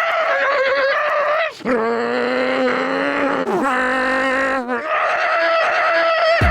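A man's voice imitating a Golf R's engine by mouth: drawn-out, wavering, engine-like tones in about four phrases, each break like a gear change.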